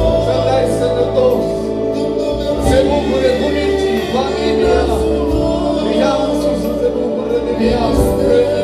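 Church worship music: voices singing over sustained chords and a slow-moving bass line, amplified through the hall's PA.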